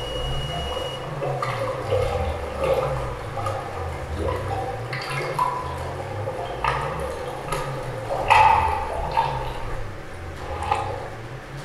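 Improvised experimental sound performance: a low, pulsing rumble under scattered clicks, knocks and rushing, water-like noises, with a thin steady high tone that stops about a second in.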